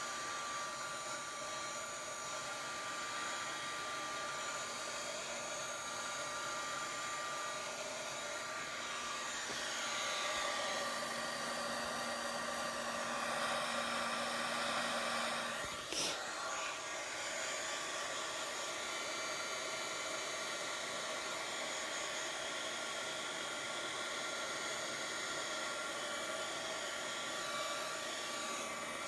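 Small handheld hot-air dryer running steadily, blowing on a wet watercolour painting to dry the wash. Its whine shifts a little as it is moved about, and there is one short click a little past halfway.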